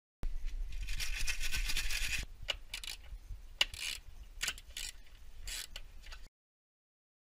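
Ratchet wrench clicking rapidly for about two seconds while undoing front suspension bolts, then scattered sharp metallic clicks and taps.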